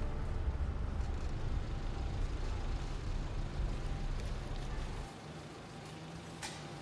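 Car engine and road rumble heard from inside a moving car; the rumble drops away about five seconds in as the car comes to a stop. A single short click near the end.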